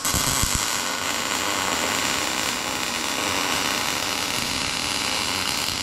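Lincoln wire-feed (MIG) welder's arc laying a continuous bead on a steel driveshaft loop insert: a steady, unbroken arc hiss and crackle.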